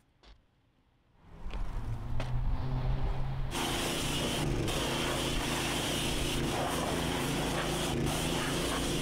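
Pressure washer running with a steady motor hum that comes in about a second in. From about three and a half seconds its wand sprays a loud hissing jet of water onto a dirt bike, with a brief break near five seconds.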